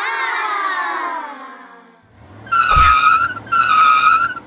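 A sound falling steadily in pitch for about two seconds, then two tire-screech squeals, each under a second long, as toy monster trucks are pushed across a tabletop; a low thud comes with the first squeal.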